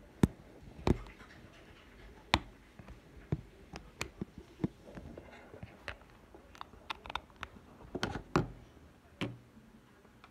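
Handling noise from hands fumbling with mobile phones: irregular clicks, taps and scratching, with a few louder knocks scattered through.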